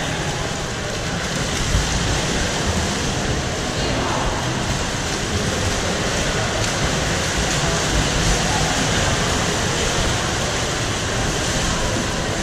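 Water polo players splashing and churning the pool water, heard as a steady, even wash echoing in an indoor pool hall.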